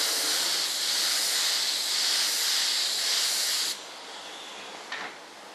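Compressed-air paint spray gun hissing steadily as it sprays, cutting off suddenly a little before four seconds in when the trigger is released. A faint click follows about a second later.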